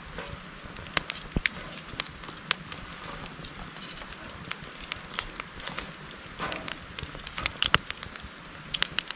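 Charcoal fire crackling and popping under a wire grill grate, irregular sharp snaps over a steady hiss. Some clicks are metal tongs touching the grate as bread rolls are turned.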